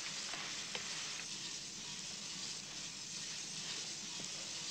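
Steady hiss of background noise, with a faint click a little under a second in.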